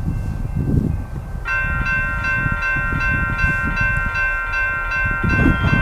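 A railroad grade-crossing bell starts ringing about a second and a half in, a steady chiming that warns of an approaching train, over a low rumble of wind on the microphone.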